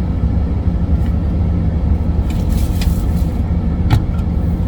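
Steady low rumble of a truck's running engine heard from inside the cab, with a short rustle about two and a half seconds in and a sharp click near the end.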